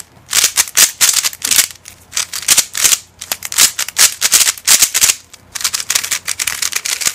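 Brand-new Yuxin 3x3 speed cube getting its first turns by hand: a fast run of plastic clicks and clacks as the layers are twisted, in quick flurries with brief pauses.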